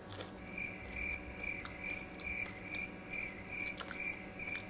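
Cricket chirping: a high, even chirp repeating about twice a second, the stock 'crickets' sound of an awkward silence. A couple of faint crunches near the end from a homemade cornflake being chewed.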